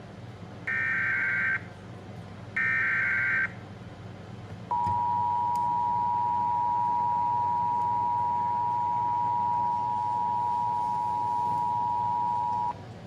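Emergency Alert System alert tones: two one-second buzzy SAME header data bursts (the last two of three), then the steady two-tone EAS attention signal held for about eight seconds before cutting off.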